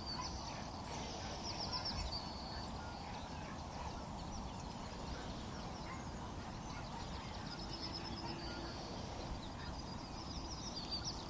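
Small birds singing: repeated rapid, high-pitched trills over a faint, steady outdoor background.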